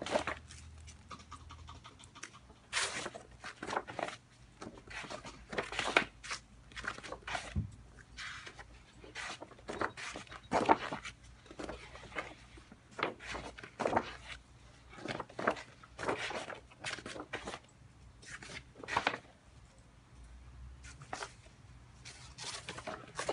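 Stiff, heavy pages of a large wallpaper sample book being turned one after another. Each flip gives a rustling whoosh of paper, in an irregular run of roughly one a second.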